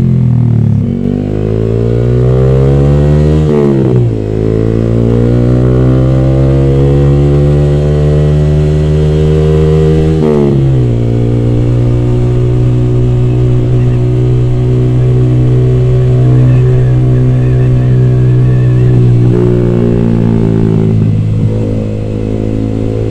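Yamaha R15 V3's 155 cc single-cylinder engine through a D'Crow Blaxton GP carbon aftermarket exhaust, pulling under acceleration. Its pitch rises, then drops at upshifts about three and a half and ten seconds in. It then runs at a steady pitch and eases slightly near the end.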